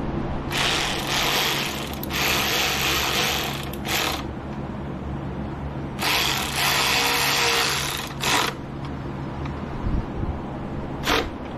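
Ratchet wrench clicking in two runs of about three seconds each as it drives in the screws of a new manifold tuning valve, with a few single clicks afterwards.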